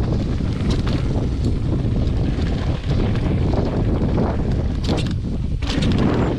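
Wind buffeting the microphone: a loud, steady low rumble, with a few short crackles about five seconds in.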